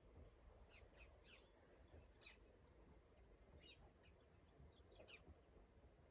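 Near silence with faint birds calling: scattered short, falling chirps over a quiet rural background.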